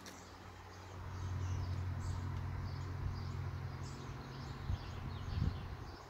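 Small birds chirping in the background, under a loud low steady hum that comes in about a second in and fades out near the end.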